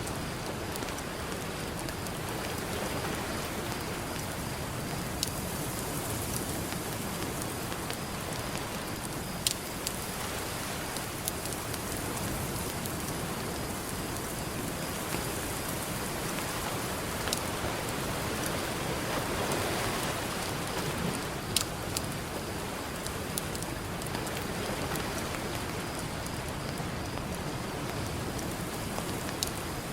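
Campfire crackling, with a few sharp pops scattered through, over the steady wash of ocean surf, which swells once a little past the middle.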